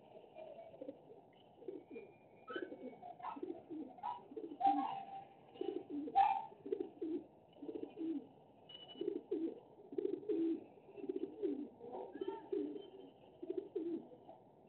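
A bird cooing over and over in low, pulsing phrases, busiest in the second half. Several sharp clicks and knocks sound in the first half.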